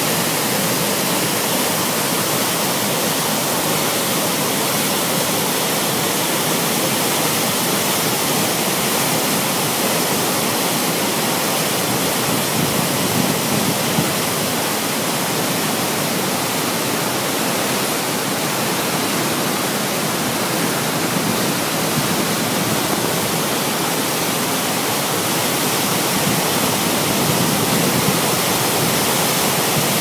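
Athabasca Falls: the Athabasca River pouring over the falls, a loud, steady rush of falling water.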